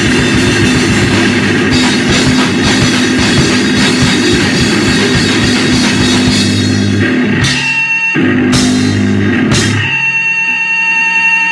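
Loud live grindcore/powerviolence band: pounding drums and heavily distorted guitar in a dense, noisy wall. About two-thirds of the way through it breaks into three short stop-start hits, then gives way to a steady held whine of amplifier feedback near the end.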